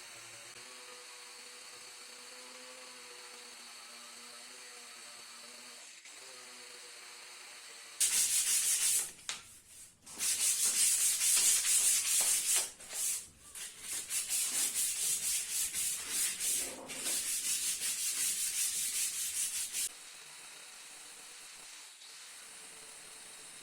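Sanding a rusty metal part: loud, rasping abrasive strokes begin about a third of the way in and run, with brief pauses, until a few seconds before the end, pulsing in quick back-and-forth rhythm in the latter half.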